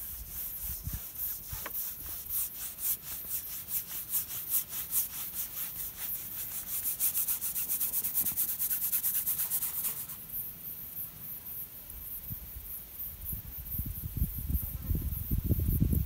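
Bristle brush scrubbing oil paint onto a stretched canvas: fast, scratchy rubbing strokes that grow denser and then stop abruptly about ten seconds in. A low rumble builds near the end.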